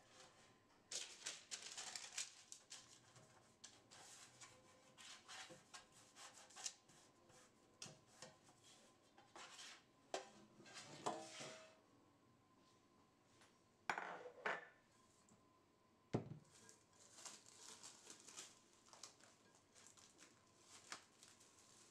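Faint handling sounds of a metal loaf pan: scattered clinks, knocks and scrapes against the counter while its inside is rubbed with oil by hand, with one sharper knock about two-thirds of the way through. Near the end, plastic cling film rustles as it is stretched over a bowl.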